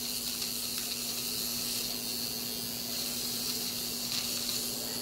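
Finishing Touch Flawless Brows battery eyebrow trimmer running steadily against the brow: a constant low hum with a hiss over it.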